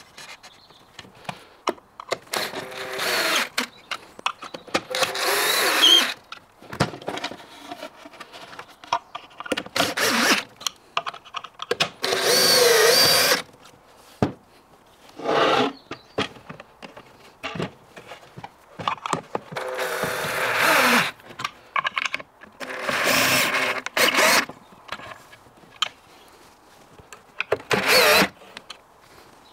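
Cordless drill-driver running in about eight short bursts of a second or so each, driving screws into chipboard cabinet panels, with small knocks and clicks of panel handling between the bursts.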